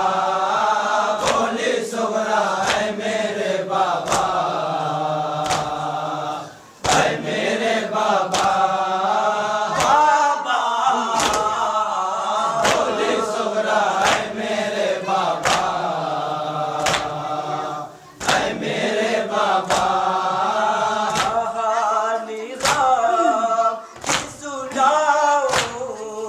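Voices chanting a Muharram noha (Shia lament) in chorus, with a sharp beat about once a second. The chant breaks off briefly twice.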